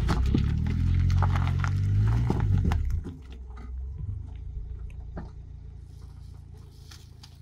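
Footsteps crunching on dry dirt and gravel over a loud low rumble for about three seconds, then the rumble drops suddenly to a quieter steady low hum with a few single clicks, one of them from the car's rear door.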